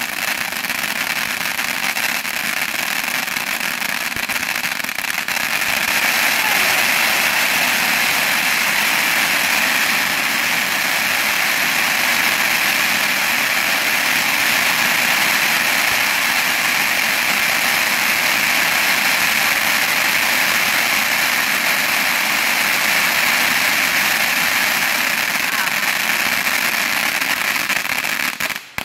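Ground fireworks fountain spraying sparks with a steady, loud hiss. It grows louder about five seconds in and cuts off just before the end.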